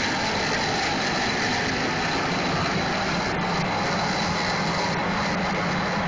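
Three high-pressure propane jet burners of a crawfish cooker burning at full flame, giving a constant rushing noise that holds the same level throughout.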